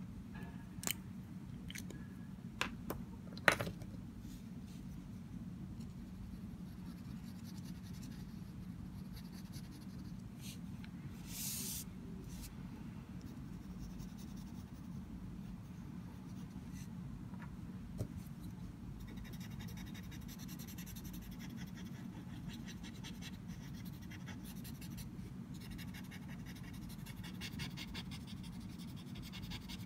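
Pencil scratching on paper in quick, repeated shading strokes, which come thick and fast in the last third. A few sharp clicks of handling come in the first few seconds, over a low steady hum.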